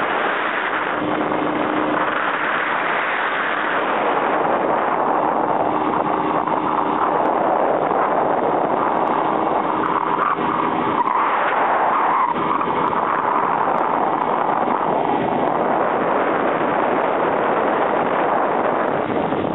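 Steady rush of wind over the microphone mixed with engine and tyre noise from a vehicle cruising along a paved road, with a faint low engine hum coming and going.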